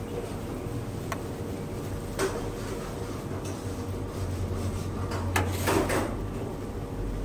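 A metal spoon clinking and scraping while green chutney is spooned onto a sandwich: a few sharp clicks, then a louder cluster of scrapes and clinks about five to six seconds in, over a steady low hum.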